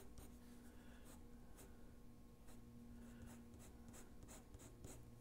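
Pencil sketching on drawing paper: faint, short scratchy strokes following one another quickly, with a faint steady hum underneath.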